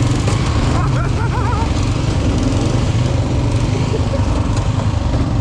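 Engines of an ATV and a Toro riding lawn mower running together, a steady low rumble.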